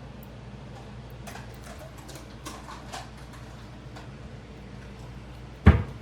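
A few light clicks and taps, then one loud short knock near the end, over a steady low hum.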